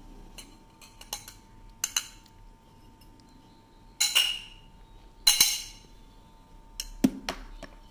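Kitchenware clinking against a white bowl as ground pistachio powder is put into it: a few light taps, then two louder ringing clinks about four and five seconds in, and a duller knock near the end.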